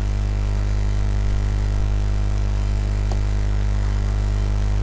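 Steady low electrical mains hum on the recording, with a couple of faint clicks about one and a half and three seconds in.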